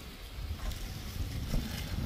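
Wind buffeting the microphone: an uneven low rumble, with a couple of faint clicks.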